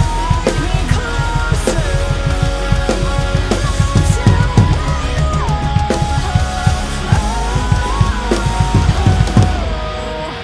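Rock drum kit (PDP birch kit, 13-inch Pork Pie Little Squealer snare, Zildjian A Custom crash, TRX BRT hi-hats, DW 7000 double bass drum pedal) played fast and busily along with the band's recorded song, with dense kick-drum strokes, snare hits and cymbals over guitars and a melody line that slides between notes. The drumming stops shortly before the end, leaving the backing track quieter.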